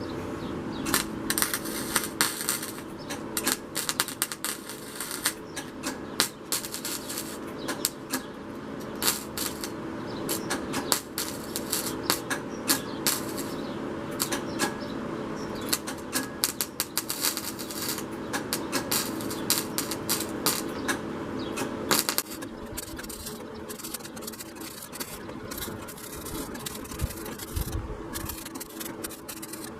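Welder filling small holes in the Jeep's sheet-metal windshield frame: irregular crackling clicks in quick runs, thinning out after about 22 seconds, over a steady hum.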